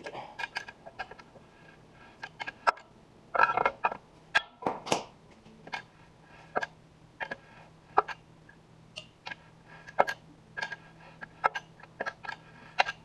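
Irregular metallic clinks and knocks of hand tools working on a steel hydraulic cylinder being taken apart, with a louder scraping stretch about three and a half seconds in and a sharp strike near five seconds. A faint steady hum comes in about six seconds in.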